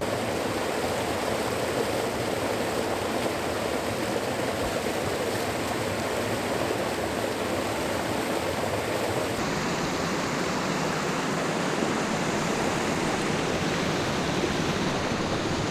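River water rushing steadily over a small rocky cascade, a continuous white-water rush. Its tone shifts slightly about nine seconds in.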